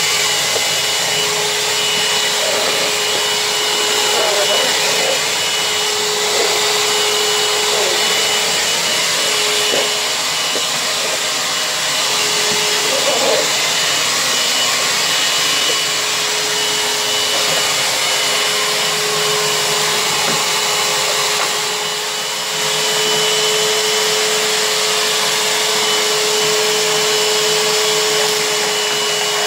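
A 1998 Numatic WV370 wet-and-dry vacuum cleaner runs steadily while vacuuming a hard floor: a loud, even rush of suction air over a steady motor whine. The sound dips briefly about three quarters of the way through.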